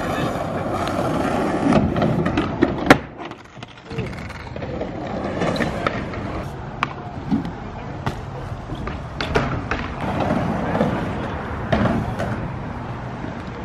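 BMX bike rolling on concrete, tyres making a rough rolling noise, with several sharp clacks and knocks from the bike's metal parts and landings; the loudest clack comes about three seconds in.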